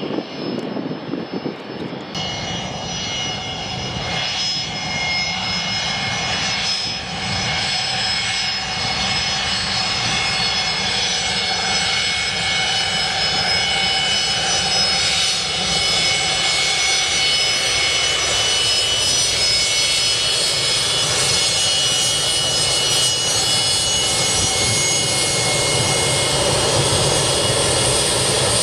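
Jet airliner's turbofan engines running, a steady rush with a high multi-tone whine, growing gradually louder.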